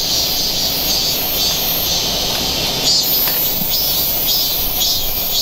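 A steady high insect chorus with slight pulsing, over a low rumble.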